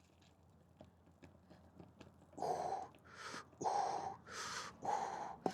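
A man breathing hard in quick, rough breaths, starting about two seconds in, after a few faint clicks.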